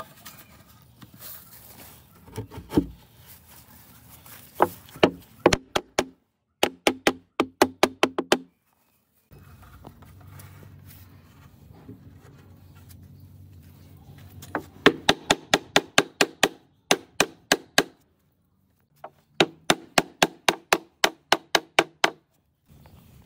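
Rapid hammer blows in quick runs of about five strikes a second, each with a short ringing tone, broken by brief pauses between runs.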